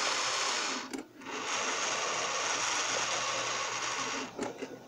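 Small electric motor and gears of a Piko BR 80 HO-scale model steam locomotive running steadily under track power. It cuts out for a moment about a second in and stops near the end, dropouts the owner puts down to a dirty rail.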